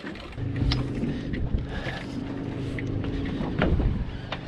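A boat motor starts about half a second in and runs with a steady low hum, with a few short clicks and knocks over it.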